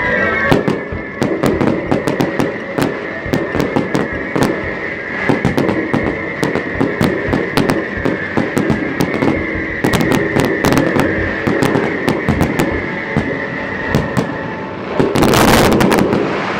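Fireworks going off in a rapid, irregular string of sharp bangs and crackles, with music playing along underneath. About fifteen seconds in comes a dense, loud crackling barrage.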